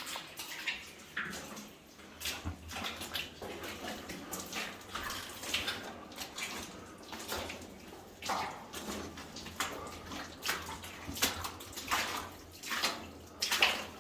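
Boots wading through shallow water, splashing and sloshing at an irregular pace of about one or two steps a second.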